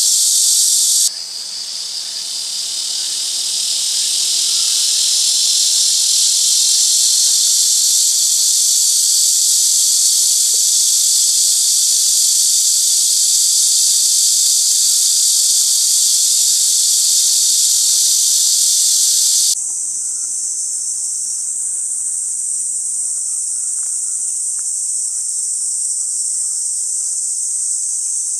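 Dense, steady high-pitched insect chorus, loud throughout. The chorus changes abruptly about a second in and again about two-thirds of the way through, becoming a narrower, thinner band of shrilling.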